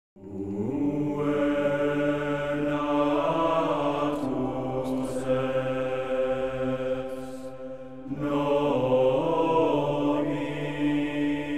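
Film soundtrack music: a low, sustained chant-like vocal drone of held tones, fading slightly and swelling again about eight seconds in.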